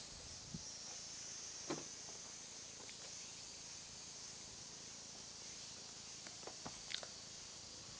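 Faint steady high-pitched insect drone, with a few light clicks and taps.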